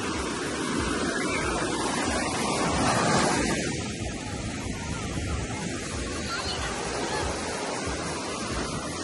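Surf breaking and washing up a sandy beach in a steady rush, swelling about three seconds in, with wind rumbling on the microphone.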